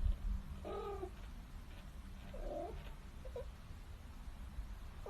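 A cat making a few short, quiet calls, the first about a second in and the next about a second and a half later, over a low steady hum.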